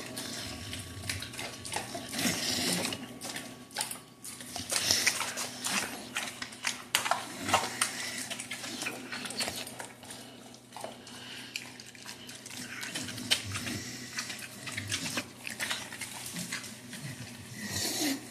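Dogs eating raw chopped meat off a tiled floor: irregular wet smacking, chewing and licking, with scattered small clicks and taps.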